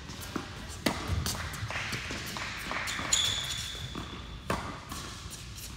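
Tennis rally in an indoor hall: sharp pops of racket strings hitting the ball, the loudest about a second in and again about four and a half seconds in, with lighter ball bounces between. A short high squeak of a shoe on the hard court starts about three seconds in.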